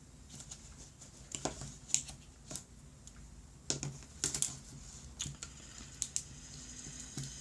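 Small magnetic pieces of a toy pen clicking and snapping together as they are handled: a run of irregular sharp clicks and taps.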